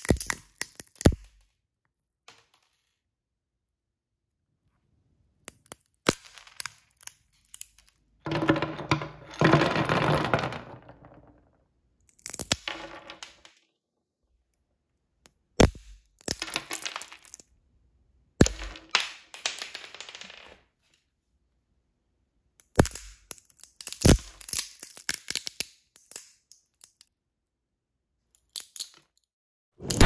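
Walnut shells being cracked in a metal hand nutcracker. There are repeated clusters of sharp cracks and crunching as each shell gives way, with pauses of a second to several seconds between nuts.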